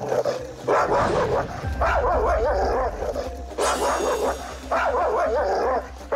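Large, aggressive dog barking in quick, unbroken volleys: one long bout, then two shorter ones.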